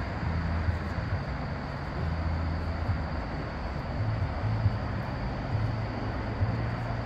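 Steady outdoor background noise: an even rushing hiss over an uneven low rumble that swells and eases.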